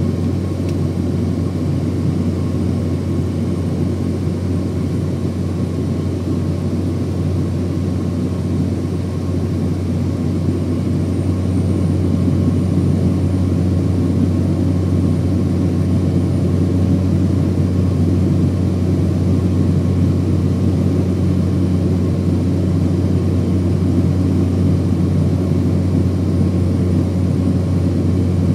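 Small high-wing propeller plane's engine and propeller heard from inside the cabin in flight: a loud, steady low drone with rushing air noise over it.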